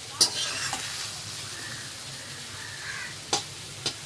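Serving spoon clinking and scraping against a pan and plate as tomato gravy is spooned over fried fish: a sharp clink just after the start and two more near the end, over a steady faint hiss.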